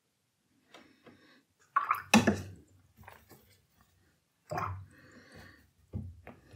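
Watercolour brush working wet paint, a few short scrubbing dabs. The loudest comes about two seconds in, with more about halfway and near the end.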